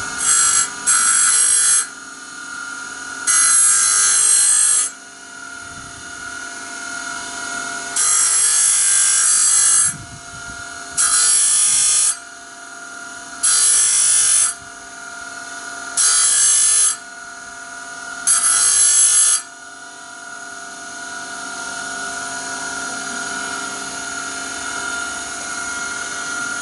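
A small high-speed rotary tool runs with a steady whine while it grinds the teeth of a steel band saw blade. There are about eight short passes of harsh, high-pitched metal grinding in quick succession, each a second or two long, then the tool runs free with no contact. The passes are kept short so the tooth tips do not overheat.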